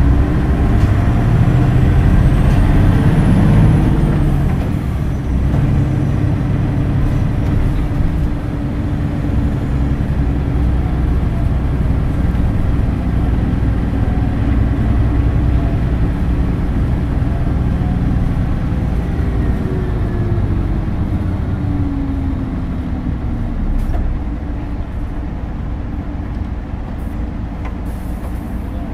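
Hino Blue Ribbon City Hybrid bus, a diesel-electric hybrid, heard from inside while under way. The engine pulls hardest in the first few seconds and then settles. A falling whine comes about twenty seconds in, and the running grows quieter near the end as the bus eases off.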